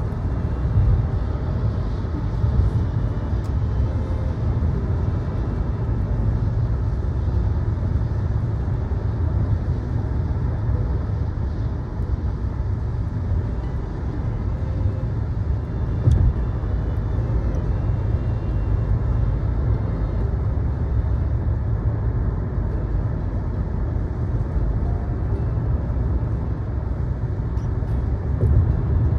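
Steady low rumble of a vehicle driving, road and engine noise heard from inside a moving car.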